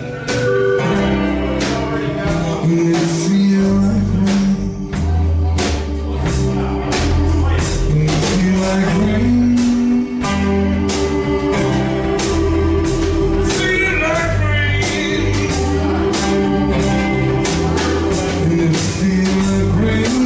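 Live band playing: acoustic guitar, electric bass and a drum kit with steady cymbal and drum hits, while a man sings.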